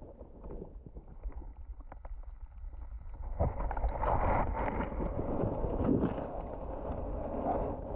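Water noise on a submerged camera: a muffled rumbling wash with many small clicks and crackles, getting louder about three and a half seconds in.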